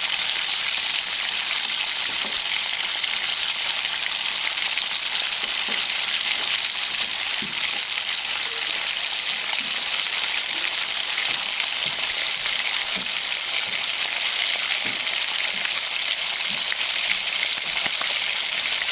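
Food frying in hot oil in a pan: a steady sizzle with scattered small crackles.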